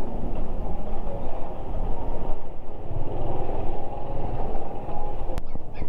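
Honda Wave 110 underbone motorcycle on the move: steady engine and road noise, with a single sharp click near the end.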